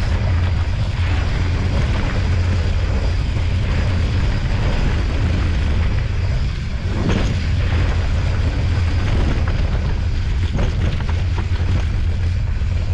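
Wind buffeting the microphone in a steady low rumble as a mountain bike rolls down a dirt trail, with tyre noise on the dirt and occasional knocks and rattles from the bike over bumps.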